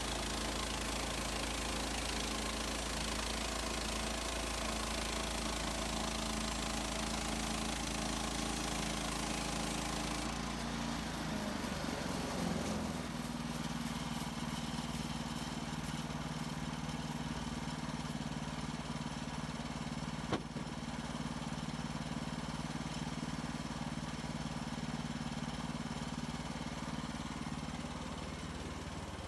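Woodland Mills HM130 Max portable bandsawmill running, its engine drone steady under a bright hiss of the band blade cutting pine. About ten seconds in, the cutting hiss stops and the engine pitch shifts as the blade leaves the cut, then the engine runs on steadily. A single sharp click comes about twenty seconds in.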